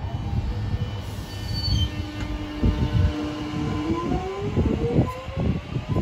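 Alstom X'Trapolis electric train pulling away from the platform. Its traction motor whine holds one pitch, then rises steadily from about four seconds in as it accelerates, over repeated low knocks of the wheels running over the track.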